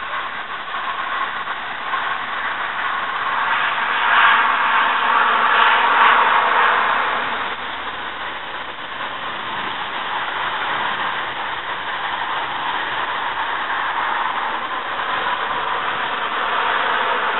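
Wind rushing through trees ahead of a thunderstorm, a steady rush that swells in a gust about four to six seconds in and then eases.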